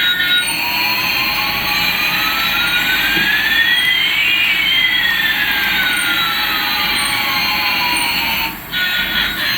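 Electronic jet-engine sound effect: a steady jet hiss with two whistling tones, one rising and one falling, that cross over about eight seconds and then cut off suddenly near the end.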